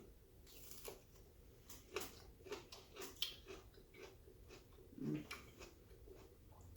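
Soft chewing and small wet mouth clicks of people eating baked chicken on pita bread, scattered irregularly, with a brief low voiced 'mm' about five seconds in.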